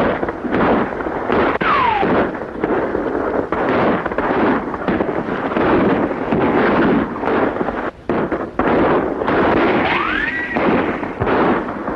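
Gunfire from a 1940s western shootout sound effect: a dense run of shots, with two brief whining glides, one falling about two seconds in and one rising about ten seconds in.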